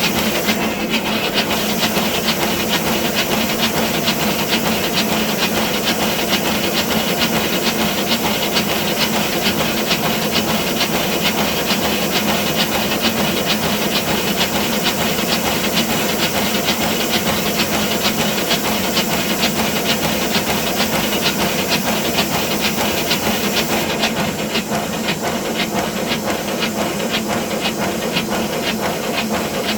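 5-inch gauge BR Class 9F live-steam model locomotive running on a rolling road: a steady hiss of steam with rapid, regular exhaust beats. The hiss thins a little about 24 seconds in.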